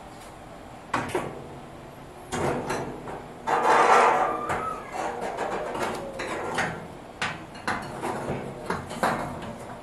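Steel cabinet back panel being fitted into the cabinet frame: a series of sharp metallic knocks and clicks, with a longer scraping rattle about three and a half seconds in.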